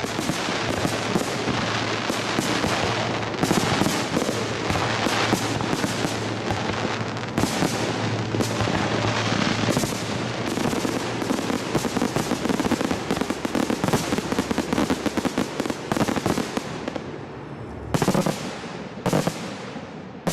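Aerial fireworks going off in a dense barrage of rapid bangs and crackling. It thins out near the end into two last separate loud bangs.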